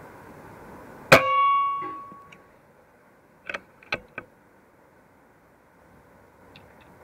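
A single shot from an unregulated PCP air rifle filled to 225 bar, firing a .22 slug: a sharp crack with a brief metallic ring about a second in. Three quick clicks follow roughly two and a half seconds later.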